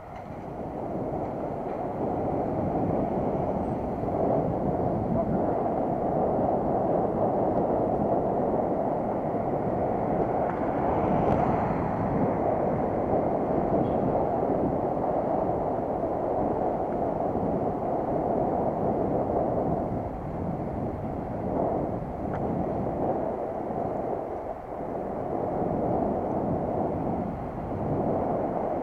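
Wind rushing over the microphone of a camera on a moving bicycle, a dense low rumbling noise that builds over the first two seconds as the bike gets up to speed, then holds with a few dips in the last third.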